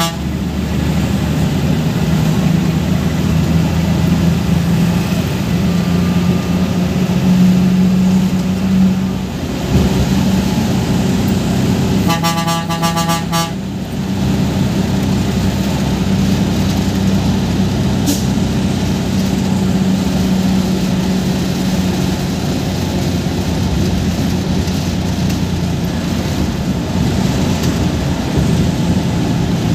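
Bus's diesel engine running steadily at road speed, heard from inside the driver's cabin along with road noise. About twelve seconds in, a vehicle horn sounds once for about a second and a half.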